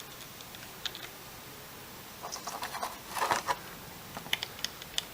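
Small clicks and light scraping of a hand screwdriver and small motor screws being worked on a quadcopter frame, with a busier patch of scraping and clicking a couple of seconds in and scattered sharp ticks after it.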